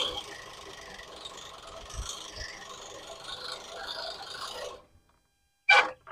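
Greenworks push reel mower rolling over grass, its spinning reel blades rasping against the freshly adjusted bed knife as they cut; the squeak of blade on bed knife is going away now that mowing has started. The sound stops suddenly nearly five seconds in, and two short sharp sounds follow near the end.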